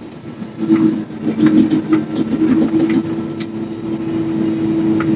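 Claas Jaguar 950 forage harvester running, heard from inside the cab. A steady hum sets in and grows louder under a second in, with scattered sharp clicks and knocks over it.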